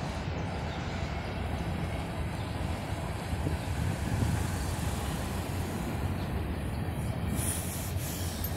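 Freight train rolling past: a steady rumble of cars on the rails.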